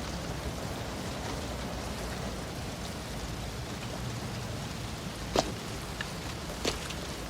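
Steady hiss of rain-like ambient noise, with two short sharp knocks near the end.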